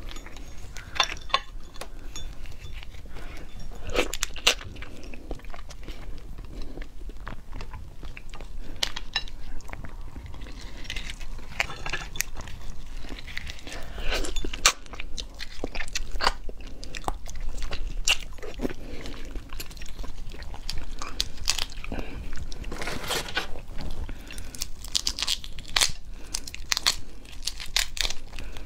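Large red prawns being peeled and eaten close to the microphone: shells cracking and crunching under fingers and teeth, mixed with chewing. It comes as irregular crackles and clicks throughout, some louder bites standing out.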